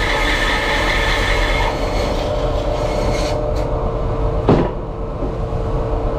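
Bandsaw running, its blade cutting through a piece of wood; the cutting noise fades over the first three seconds as the cut finishes while the saw keeps running. A sharp knock about four and a half seconds in.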